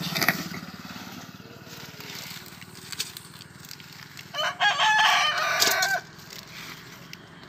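A rooster crows once, for about a second and a half, a little past the middle. A few short clicks come before and after it.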